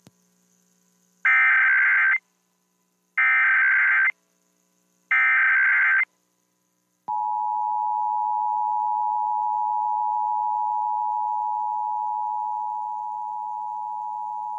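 Emergency Alert System header: three one-second bursts of SAME digital data tones with short gaps between them, then the EAS two-tone attention signal, a steady two-note beep held for about eight seconds. These are the tones that open an EAS alert, here the nationwide periodic test.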